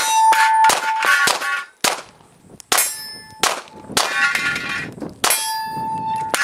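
A string of about ten pistol shots at steel targets, each hit answered by a ringing clang of struck steel plate.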